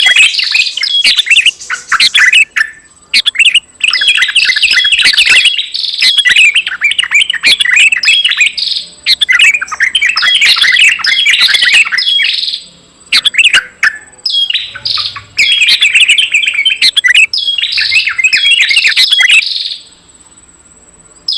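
Small songbirds' rapid, twittering chirps used as a bird-luring call. The chirps come in dense bursts of one to three seconds with short pauses between them, over a faint steady high whine.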